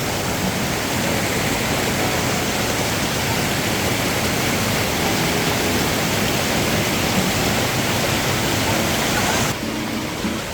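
Waterfall pouring, a loud, steady rush of falling water. It cuts off suddenly near the end, giving way to a quieter background.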